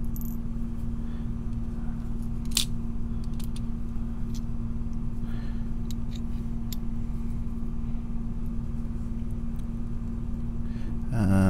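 Steady low background hum with one fixed tone, with a few faint light clicks of steel tweezers against the small brass lock plug and its pins. The clearest click comes about two and a half seconds in.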